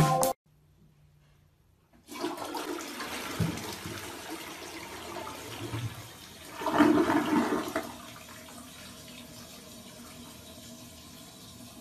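Rushing water that starts about two seconds in after a short silence, swells to its loudest around seven seconds, then settles to a steadier, quieter hiss.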